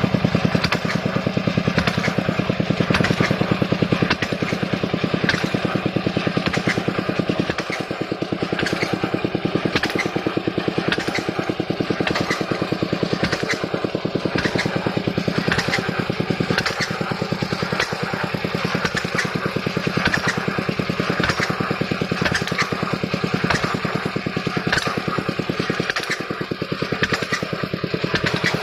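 Engine of a core drilling rig running steadily under load, with regular sharp knocks from the working rig repeating throughout.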